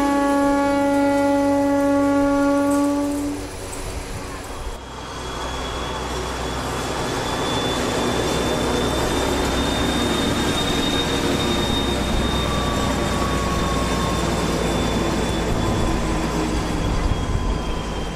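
Soviet-built V200 (M62) diesel locomotive passing close by. It sounds a single-note horn blast that ends about three seconds in, then its two-stroke V12 diesel runs loud and steady, with a faint high turbocharger whistle that slowly falls away near the end.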